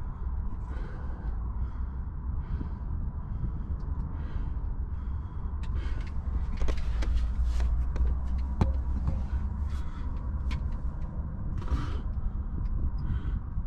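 Footsteps and scuffs on a rocky, muddy cave floor, roughly one a second, over a steady low rumble. The steps come faster and louder about six to eight seconds in.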